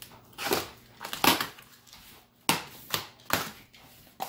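Packing tape on a cardboard box being slit with a utility knife and the flaps pulled open: about six short, scratchy tearing strokes.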